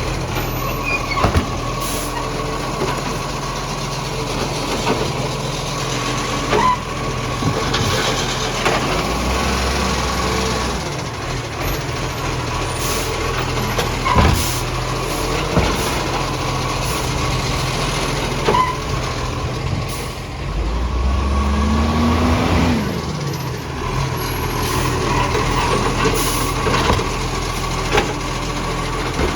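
Garbage truck's diesel engine running with a large exhaust leak, revving up and back down once near the end, with heavier rumbles in between and several sharp sudden knocks.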